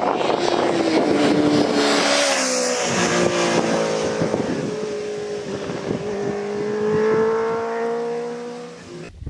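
Honda CBR650F's inline-four engine on a flyby: the exhaust note drops in pitch as the bike passes, about two seconds in, then rises steadily as it accelerates away and fades. Wind buffets the microphone throughout.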